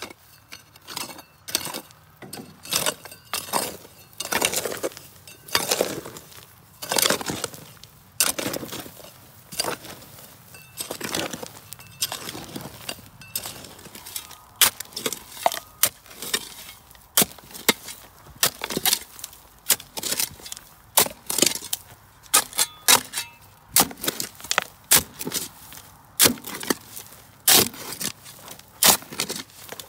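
Shovel digging into hard, dry, stony soil: a run of separate strikes and scrapes, about one or two a second, louder from about halfway.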